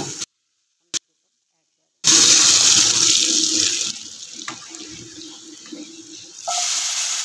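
Hot oil with cumin seeds and whole green chillies sizzling loudly as the tempering is poured onto cooked chickpea curry. The sizzle starts abruptly after a silent gap of about two seconds, dies down, then flares up again near the end.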